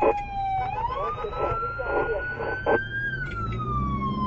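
Electronic siren of an emergency rescue vehicle wailing, its pitch sliding down, then slowly rising for about two and a half seconds, then sliding down again. Under it runs a steady low engine and traffic rumble.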